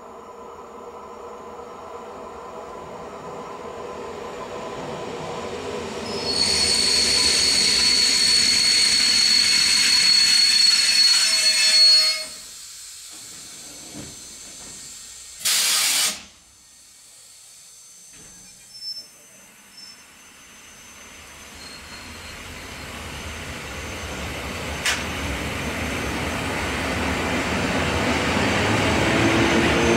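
An EN57 electric multiple unit arriving and braking to a stop. A steady, high-pitched brake squeal lasts about six seconds, then cuts off. A few seconds later comes one short, loud hiss. The train then pulls away, growing steadily louder as it accelerates toward and past the listener.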